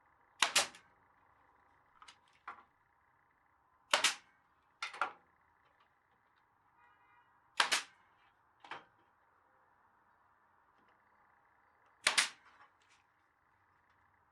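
Sharp knocks from woodworking: four loud single strikes a few seconds apart, each followed within a second by one or two fainter knocks, over a faint steady hiss.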